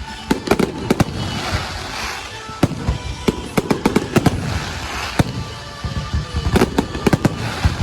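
Fireworks display: a rapid series of sharp bangs and crackles, with swells of fizzing crackle about a second and a half in, around four seconds and again near the end. A song plays underneath.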